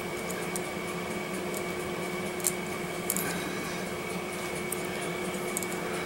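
Steady background hum, with a few faint short clicks and scrapes as a long steel clay blade trims a moulded polymer clay face.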